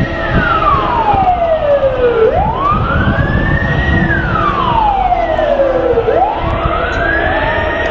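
Siren wailing in slow sweeps, rising over about two seconds, holding briefly at the top, then falling over about two seconds; it falls, rises and falls again, and climbs once more near the end. Loud, constant background noise runs underneath.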